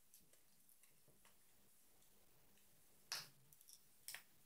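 Faint handling ticks, then a sharp click about three seconds in and another about a second later: the parts of a 35 mm film cassette clicking as they are fitted together by hand.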